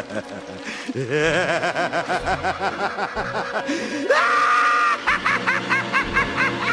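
Maniacal, Joker-style cackling laughter: bouncing laughs, then a rising glide into one long held cry about four seconds in, then fast repeated laughs.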